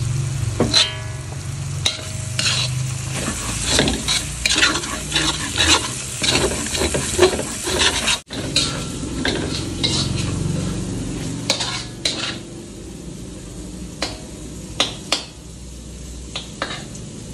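A metal spatula scraping and clattering against a wok as curry spice paste with shallots, lemongrass and lime leaves is stir-fried in oil, which sizzles. The strokes come thick and fast at first, then thin out after about twelve seconds to a few sharp taps over a quieter sizzle.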